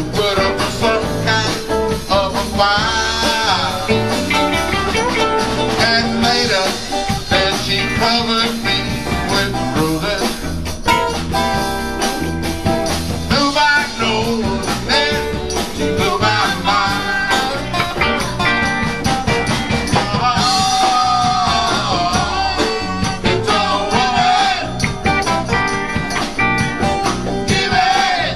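Live band playing blues-rock: electric and acoustic guitars over bass and drums, with a man singing.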